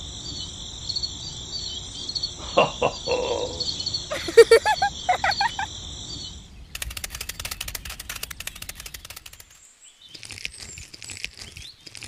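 Steady insect trilling with a few bird chirps. The trilling stops about six and a half seconds in, giving way to a fast, dense rattle of clicks and then a softer hiss near the end.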